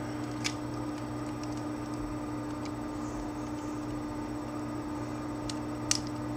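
A few short clicks from a working model Glock 23 mechanism being operated, one about half a second in and a sharper, louder one near the end, over a steady low hum.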